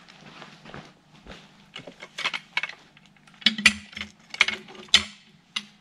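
Irregular metallic clicking and clanking, a string of short sharp knocks that come thickest and loudest in the second half, as from tools or hardware being handled.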